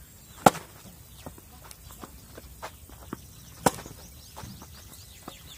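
Two sharp tennis racket hits on the ball, about half a second in and again about three seconds later, with lighter scuffs and ticks of footsteps shuffling on a clay court between them.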